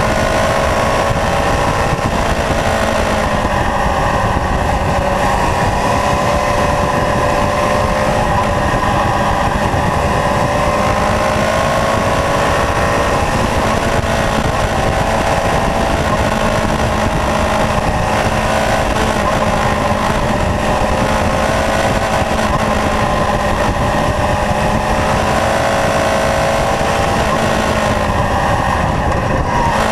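Kawasaki Zephyr's air-cooled inline-four engine running under way, its pitch rising and falling gently as the throttle changes through the bends, over a steady rush of wind and road noise.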